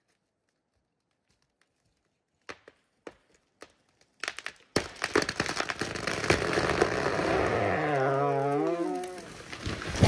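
A large old-growth tree going over after felling: a few sharp cracks of the hinge wood giving way, then a long rushing crash as the tree falls through the surrounding branches, with a wavering creak of tearing wood fibres. It ends in a heavy thud as the trunk hits the ground.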